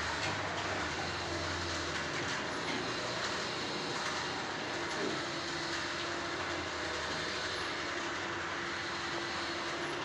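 Automatic overhead sliding garage door running upward: the opener motor drives it and the panels roll along their tracks with a steady rumble. A faint steady hum comes in about halfway.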